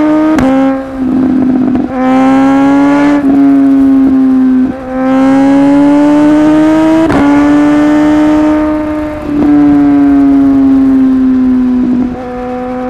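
Suzuki GSX-S1000 inline-four motorcycle engine pulling hard, with sharp quickshifter pops on the upshifts, each followed by a small drop in engine pitch. Past the middle the note slowly falls as the throttle eases off.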